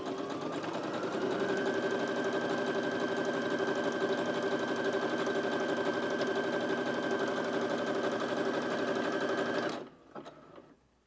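Brother SH40 computerised sewing machine sewing a zigzag stitch. Its motor whine rises in pitch as it gets up to speed over the first second or so, runs steadily, then stops suddenly near the end.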